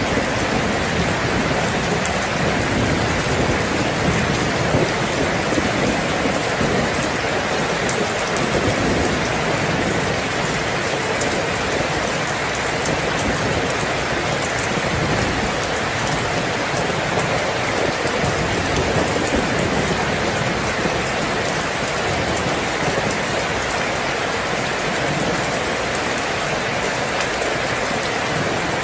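Heavy rain falling steadily in a thunderstorm, with low thunder rumbling underneath, most in the first half.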